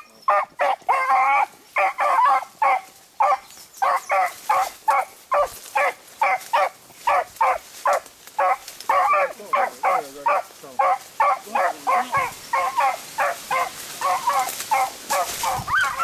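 Beagle hounds baying at about three barks a second, without a break: the hounds are giving tongue while they run a rabbit's scent trail.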